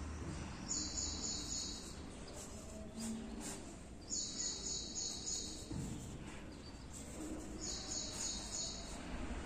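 A high-pitched chirping trill, each bout about a second and a half long, comes three times at even intervals of about three and a half seconds. Faint pencil strokes scratch on paper underneath.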